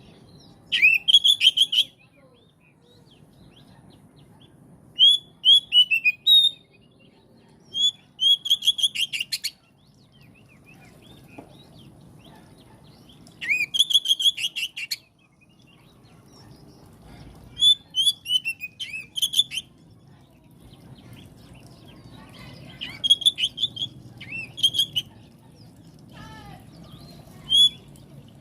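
Oriental magpie-robin (kacer) singing in short, loud phrases of rapid whistled and harsh clicking notes, about seven phrases separated by pauses of a few seconds, over a faint low background rumble.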